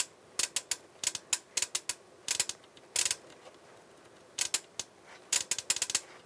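Small signal relays on the Sound Skulptor MC624 monitor controller's board clicking as the relay test switches them, about two dozen sharp clicks in irregular quick runs with a pause of over a second near the middle. The relays are switching the volume attenuator's resistor network through its settings.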